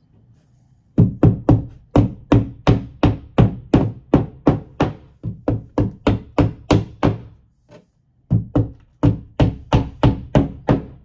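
Claw hammer tapping plastic drywall anchors into drywall: quick, even knocks about three a second, in two runs with a short break about seven seconds in.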